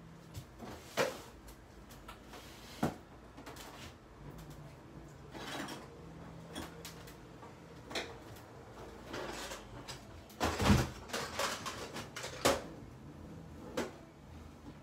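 Irregular knocks, clatters and short rustles of things being handled and moved about on a desk, with a louder run of knocks about ten and a half seconds in.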